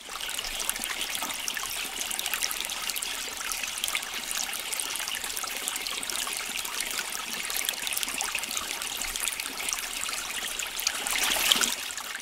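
Tap water running and splashing as a lemon and a zucchini are rinsed by hand over a plastic salad spinner basket in the sink, a steady patter of drips and spatter that fades out near the end.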